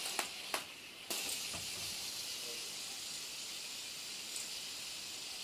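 Fidget spinner flicked into a spin about a second in, its bearing giving a steady high-pitched whir. A few clicks of handling come just before.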